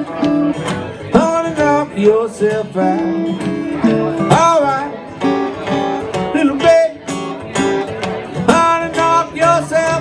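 Live acoustic blues music: two acoustic guitars playing an instrumental stretch between sung lines, with a lead melody that bends up and down in pitch.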